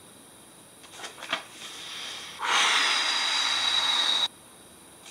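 A man breathes in and then blows out a long, loud exhale through pursed lips, a hissing sigh with a faint falling whistle that stops abruptly.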